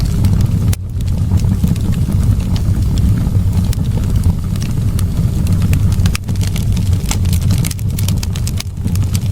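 Wood fire crackling in a fireplace: irregular sharp pops and snaps over a steady low rumble of the burning flames.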